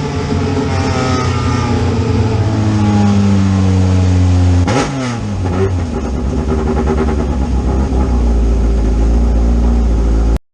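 Fiat Uno 16v car engine running at fairly steady, slowly rising revs, with a quick sweep in pitch about five seconds in. It then settles to a steady lower note and cuts off abruptly near the end.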